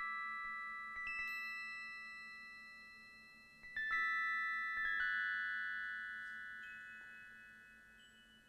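Live improvised music of bell-like, glockenspiel-like struck tones. Small clusters of high notes are struck about a second in and again around four seconds, each left ringing and slowly fading, with a few single notes added later.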